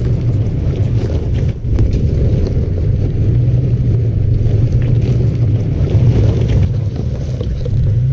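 Wind buffeting the microphone over a steady low rumble, with a few sharp ticks in the first couple of seconds.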